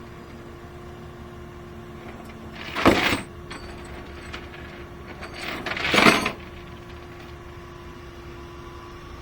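Steady hum of an idling engine, broken twice, about three seconds apart, by a loud noisy burst that swells for half a second or so and then stops.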